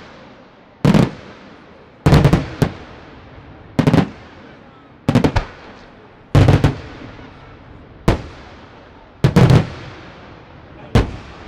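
Aerial firework shells bursting: a sharp bang every second or so, several coming as double or triple reports, each trailing off in a rolling echo.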